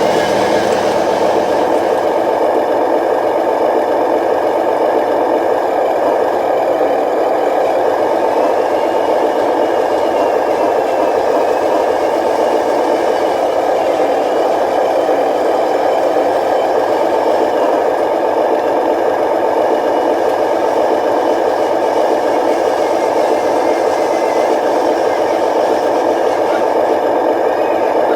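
Radio-controlled model truck running, its small electric motor and gearbox giving a steady whir with a rattle.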